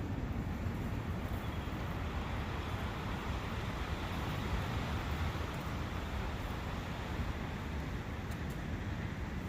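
Steady rushing ambience of wind through a forest and a nearby brook, an even noise with no distinct events.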